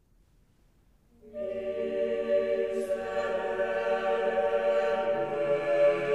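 Near silence, then a choir begins singing about a second in, holding long, steady notes.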